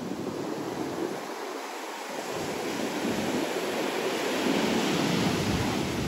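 Ocean surf breaking and washing up a sandy beach, with wind on the microphone. The wash swells a little louder past the middle.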